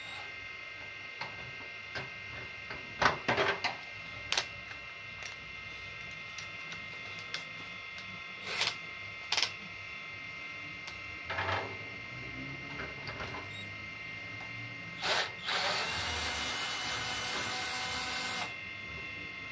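Electric drill driving a long screwdriver bit to back out a screw in a gas instant geyser's metal casing. Scattered clicks and knocks of the bit and tool come first, then the drill runs steadily for about three seconds near the end.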